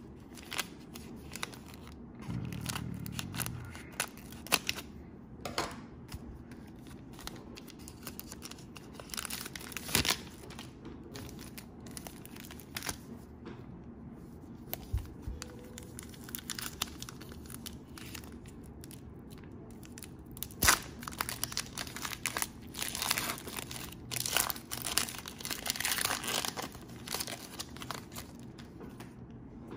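Cellophane wrapper of a Panini Prizm basketball card cello pack being torn open and crinkled, with scattered sharp crackles and clicks as it is handled.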